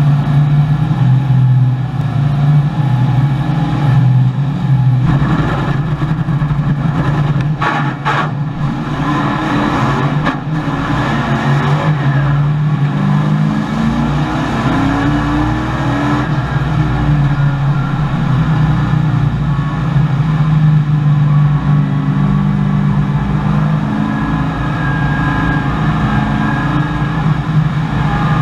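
V8 engine of a 1984 Chevrolet Camaro race car, heard from inside the cockpit, running hard under acceleration. Its pitch rises and drops as it goes up through the revs, most plainly about halfway through.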